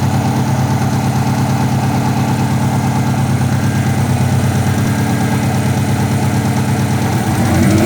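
Subaru EJ20 flat-four engine idling steadily with a fast, regular knock from the bottom end. This is early-stage rod knock, which the owner thinks is probably caused by high oil temperature and poor oil quality.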